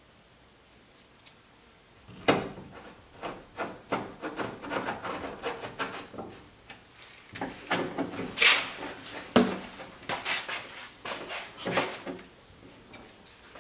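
Irregular clicks, knocks and rattles of tools and metal parts being worked on a pickup truck door, starting about two seconds in, with the sharpest knocks near the start and again past the middle.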